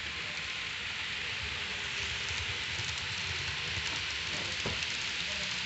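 Model trains running on a layout's track: a steady rolling hiss with a low rumble of wheels and motors, and one faint knock near the end.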